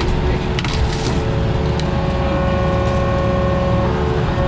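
Diesel engine of compact earthmoving equipment running steadily under working load, with a steady whine above it. A few short clicks sound about a second in.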